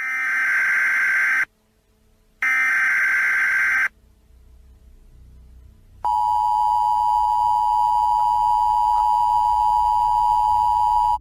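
Emergency Alert System-style warning signal: two bursts of screeching digital header tones, then after a brief pause the steady, harsh two-tone attention signal starts about six seconds in.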